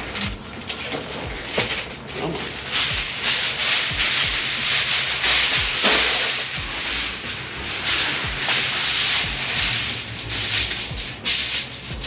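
Heavy-duty aluminum foil crinkling and rustling loudly and continuously as it is pulled off the roll, lifted and smoothed flat on the counter by gloved hands.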